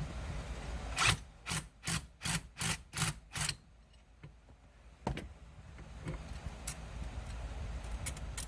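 A tool worked in a quick series of about seven scraping strokes, roughly three a second, followed by a single knock.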